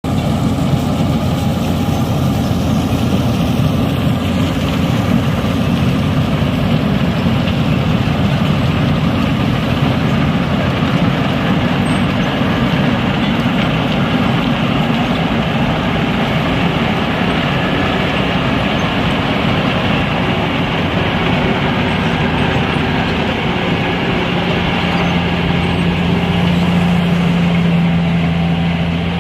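Wirtgen W 195 cold milling machine running steadily, its diesel engine and cutting drum grinding off the asphalt road surface. A steady low hum joins in near the end.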